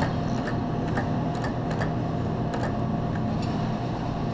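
Claw machine in play: scattered sharp clicks from its mechanism and controls over a steady low machine hum.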